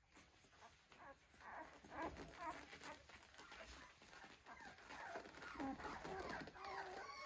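A litter of young Australian Shepherd puppies whimpering: many short, thin cries that rise and fall and overlap, coming more thickly in the second half.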